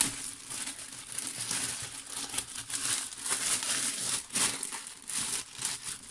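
Clear plastic wrapping crinkling as it is pulled and peeled off a spin-on coolant filter by hand, in a busy, irregular run of crackles.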